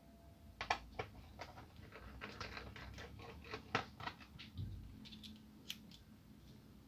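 Faint, irregular light clicks and taps of a screwdriver working the small screws in a laptop's plastic chassis. The clicks are densest in the first four seconds and thin out to a few fainter ones later, with a soft low thump about four and a half seconds in.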